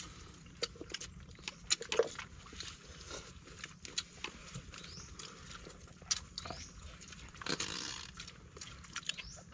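People eating with their hands from opened sea urchin shells: quiet, scattered small clicks and taps of fingers and spiny shells, with eating noises in between.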